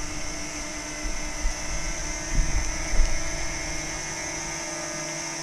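DJI Mini 2 drone flying close by, its small propellers giving a steady high-pitched whine. Low rumbling buffets come in during the first three seconds.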